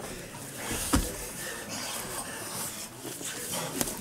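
Two MMA fighters grappling on a ring mat: hard breathing and scuffling, with a sharp knock about a second in and another just before the end.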